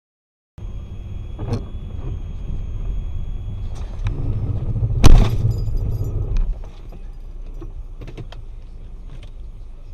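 Low, steady rumble of a car's interior and tyres on a wet road, starting about half a second in, broken about five seconds in by one sharp bang as the car collides with another car, then the rumble settles quieter.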